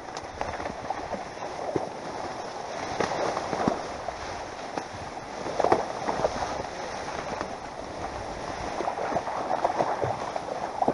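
Dry reed stems rustling and crackling as someone pushes through a dense reed bed, with many small snaps and cracks among a steady rustle.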